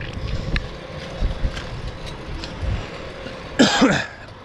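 A bicycle rolling along a concrete sidewalk: wind buffeting the microphone and tyre rumble, with light ticks about once a second. Near the end there is a short, louder sound whose pitch bends.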